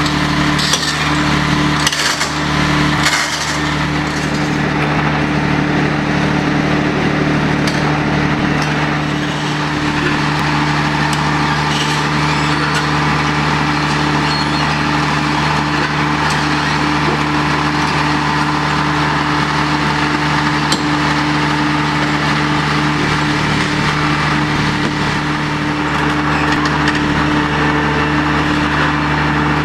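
Diesel engine of a tracked Kleemann Mobirex EVO 110 impact crusher running at a steady speed as the machine crawls on its tracks, with a few sharp clanks in the first few seconds.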